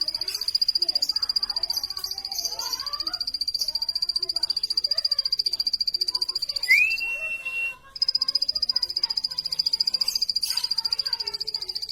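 Plain prinia calling: a rapid, even run of high notes repeated many times a second, broken about seven seconds in by a rising whistle and a brief pause before the run starts again.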